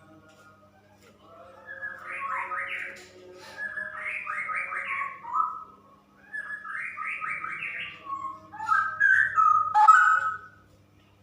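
Female straw-headed bulbul singing: loud, rich, rapid bubbling warbled phrases, three in a row a couple of seconds apart, then a further run of notes. A short sharp sound cuts in near the end.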